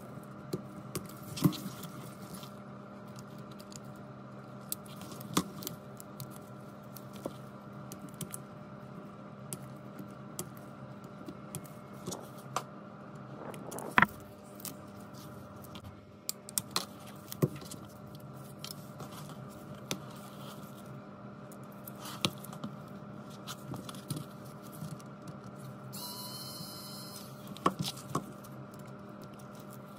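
Scattered small clicks and taps of tweezers and gloved fingers on the parts of an opened Huawei Mate 30 Pro phone, over a steady low hum.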